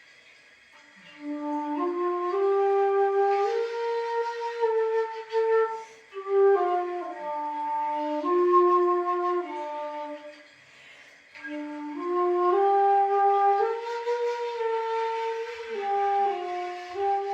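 Xiao, a Chinese end-blown bamboo flute, playing a slow solo melody that moves in steps through three phrases separated by short pauses.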